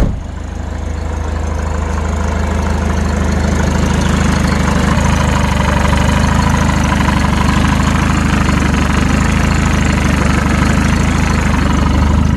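Mercedes-Benz OM601 four-cylinder diesel idling with a steady diesel clatter, still cold shortly after a cold start; it gets louder over the first couple of seconds, then holds steady. A single sharp thump right at the start.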